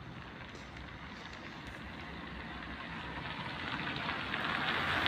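A car approaching on the street, its engine and tyre noise growing steadily louder.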